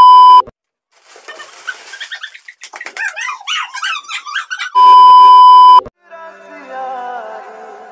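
A loud steady test-tone beep lasting about a second, the tone of a TV colour-bars card, then about three seconds of shrieking and laughing voices, then a second one-second beep, after which music with a melody begins.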